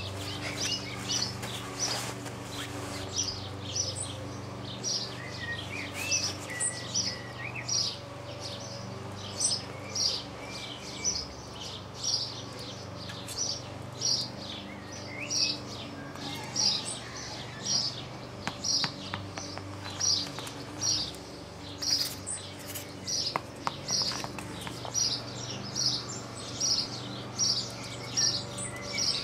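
A small bird chirping over and over, short high chirps at an even pace of about one every half second, over a steady low hum.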